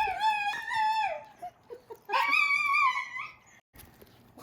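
Shiba Inu giving two long, wavering whine-howls, the second starting about two seconds in.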